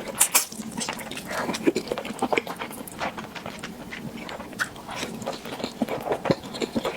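A person eating into a close microphone: chewing and biting, with many short, irregular wet mouth smacks and clicks.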